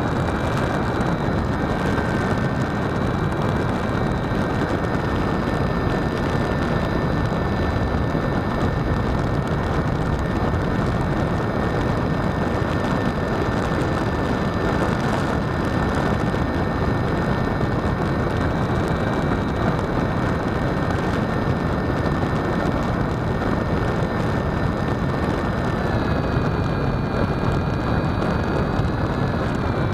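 RC airplane in flight heard from its tail-mounted camera: a heavy rush of wind over the microphone with the motor and propeller's steady whine, which drops slightly in pitch near the end.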